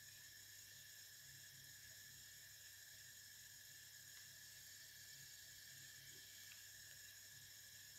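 Near silence: a faint steady hiss with a thin, steady high tone running through it.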